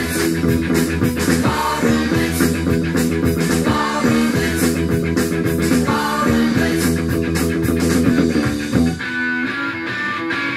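Electric bass guitar plucked along to a loud rock recording with drums and guitar. The beat and deep low end drop out near the end, leaving sustained guitar chords ringing.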